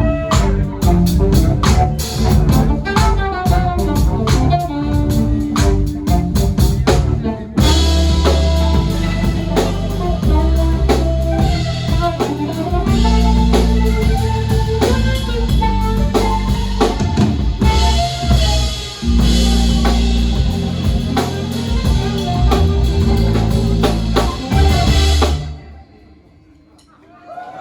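Live jazz-funk quartet of drum kit, electric bass, keyboards and saxophone playing the last bars of a tune: a busy drum-led passage for about seven seconds, then the whole band comes in loud. The tune stops dead about 25 seconds in, and after a moment of quiet the audience starts cheering near the end.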